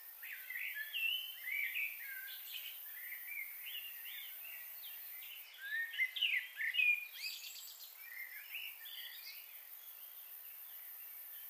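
Several birds chirping and calling, a busy run of short rising and falling whistles, over a steady high hiss; the calls are loudest a little past halfway.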